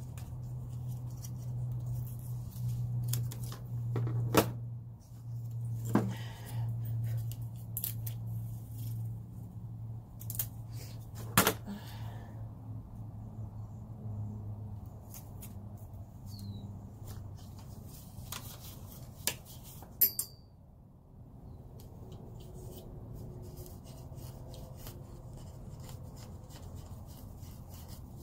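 Scissors snipping cardboard into small plant labels, with faint ticks and a handful of sharp clicks over the first two-thirds, over a steady low hum.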